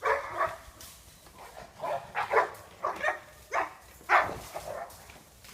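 Hog-hunting dog barking in a run of short, sharp barks with brief pauses between them, the loudest about four seconds in.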